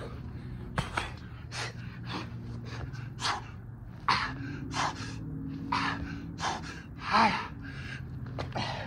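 A man's hard, gasping breaths during burpees, coming in quick noisy bursts about once or twice a second, with a longer, louder voiced grunt about seven seconds in. A steady low hum runs underneath.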